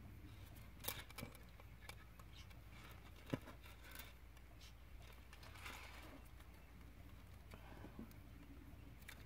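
Near silence with faint handling sounds: lace trim and felt being moved about on a tabletop, with a few light clicks and rustles. Near the end there is a quiet snip of small scissors cutting the lace.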